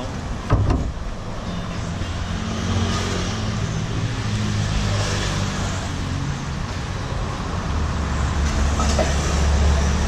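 Road traffic passing close by: a steady engine rumble that swells as vehicles go past, loudest near the end. A short sharp knock about half a second in.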